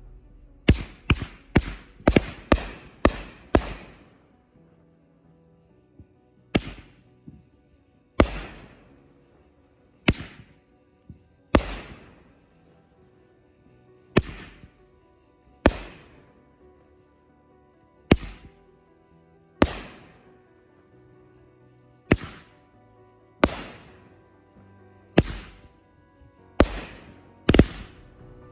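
500-gram firework cake firing: a fast volley of about seven sharp bangs in the first four seconds, then single bangs every one and a half to two and a half seconds, over faint background music.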